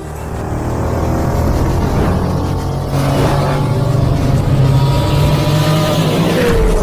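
Sound effect of a racing engine revving and speeding past, its pitch rising and falling, with a falling swoop near the end.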